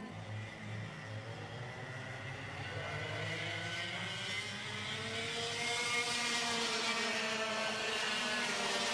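Racing karts' 125cc two-stroke engines running on track, their pitch rising and falling as the karts accelerate and brake. The sound grows louder over the last few seconds.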